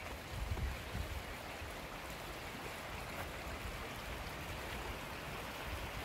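Shallow mountain stream flowing over rocks, a steady rushing, with a few low bumps in the first second.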